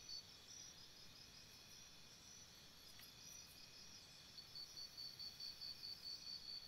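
Rainforest insects: a high, fast pulsed chirping about five times a second that stops just after the start and starts again about four seconds in, over a faint steady insect drone.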